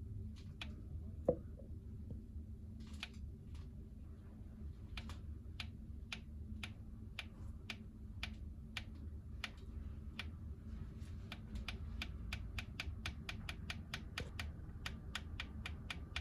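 Honda Civic engine running with a repeated light tick from the hydraulic belt tensioner. The ticks come sparse and uneven at first, then quicken to about three a second. The owner takes the knock for the ball in the tensioner's damper, though not with certainty.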